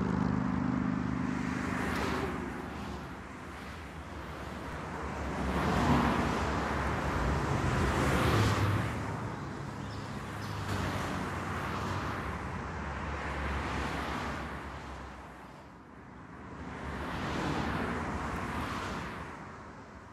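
Road traffic: cars passing one after another, each swelling and fading over a few seconds, with a low engine hum in the first few seconds.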